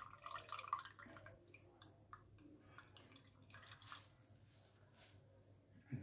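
Faint dripping and trickling of water wrung by hand out of grated radish wrapped in a cloth, falling into a bowl, mostly in the first second and then in scattered drips.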